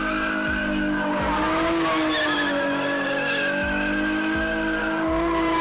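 A car spinning its tyres at a car meet, with the tyres squealing and the engine held at steady high revs. The sound stays unbroken and loud, its pitch wavering only a little.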